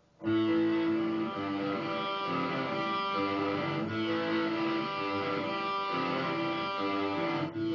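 Electric guitar playing a lead melody over a pre-recorded rhythm backing track played back through a stereo. The music starts abruptly just after the beginning, with a brief break near the end.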